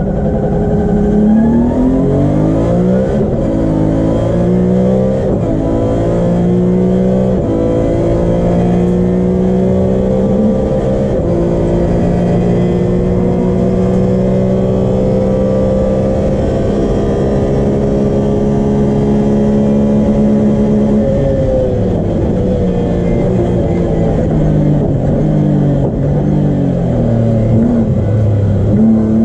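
BMW E36 M3's 3.0-litre straight-six at full throttle from a standing start, heard from inside the race car's cabin: the engine note climbs through each gear and drops back at several quick upshifts, then holds high and steady for several seconds. About three quarters of the way through the note falls away as the car brakes hard, with short jumps in pitch as it downshifts.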